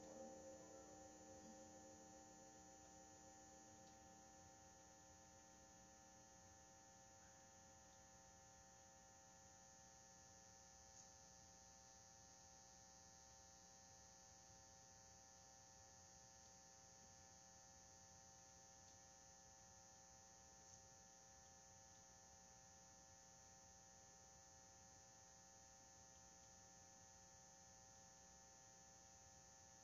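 Near silence with a faint steady electrical hum. The last ringing of the drum kit dies away in the first couple of seconds.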